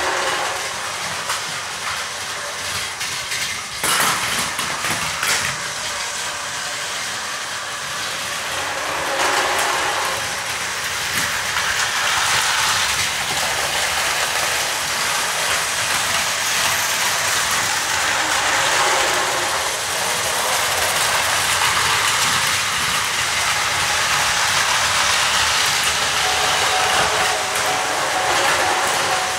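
Battery-powered Plarail toy train running on plastic track: a steady whirring of its small motor and gears, with rattling and a few sharp clicks about four to five seconds in.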